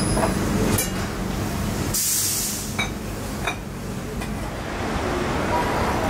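Coffee-shop sounds: a short hiss of steam from an espresso machine about two seconds in, and a few light clinks of cups and glassware over a steady low background hum.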